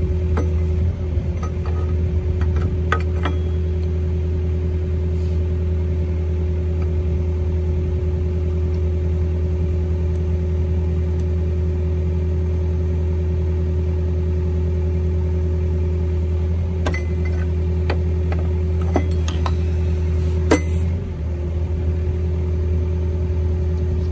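Steady engine drone and hydraulic whine of the power supply driving a Pipe Ram hydraulic pipe-pushing drill. A few short sharp metal clanks come from the ram, once a few seconds in and several times near the end.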